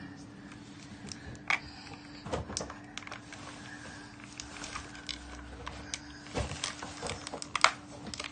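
Clear plastic blister packaging crackling and clicking as it is cut open with scissors: irregular snips and crinkles, the sharpest click near the end, over a faint steady hum.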